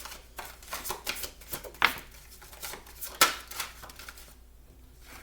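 Tarot cards being shuffled and handled: a run of quick papery rustles and taps, with two sharper slaps of cards about two seconds in and just after three seconds.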